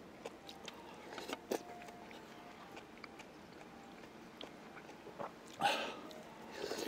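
A person eating close to the microphone: soft chewing and mouth clicks, with a louder noisy burst about a second in, a bigger one about five and a half seconds in, and another at the very end.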